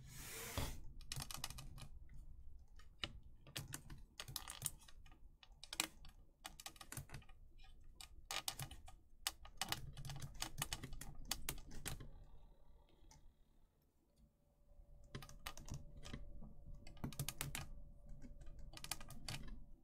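Hard plastic statue parts being handled and fitted together as a wing piece is clipped in, a run of irregular light clicks and taps with a short lull about two-thirds of the way through.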